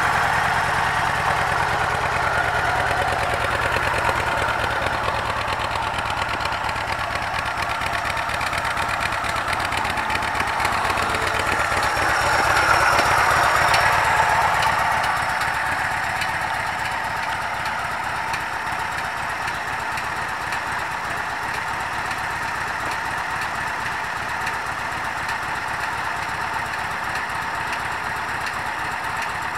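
Yamaha Road Star 1700 trike's V-twin engine idling steadily, briefly louder for a couple of seconds around the middle.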